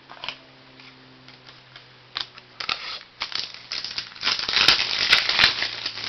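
Crinkling and crackling of trading-card packaging being handled, scattered at first and then dense and loudest for a second or so near the end.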